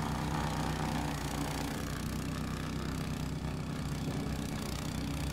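Petrol snowblower engine running steadily as the machine throws snow.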